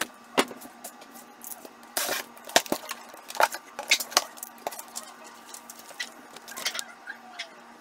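Corrugated cardboard shipping box being opened by hand: irregular sharp crackles and snaps as the flaps are pulled open, with one longer rip about two seconds in.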